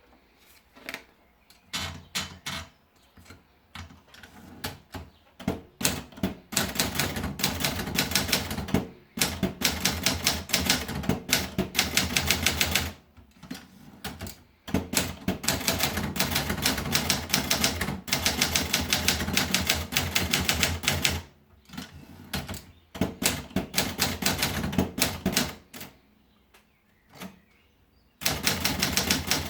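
Triumph Gabriele typewriter being typed on. Scattered single keystrokes at first, then runs of rapid typing lasting a few seconds each, broken by short pauses.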